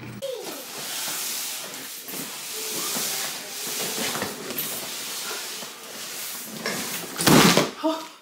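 A large cardboard box, a boxed walking pad treadmill, being pushed and slid across a hardwood floor with a long scraping hiss. About seven seconds in comes a loud heavy thud as it is tipped over flat onto the floor.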